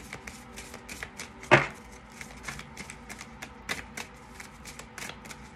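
A deck of reading cards being shuffled by hand, a quick irregular patter of card-on-card clicks, with one sharper, louder snap about one and a half seconds in.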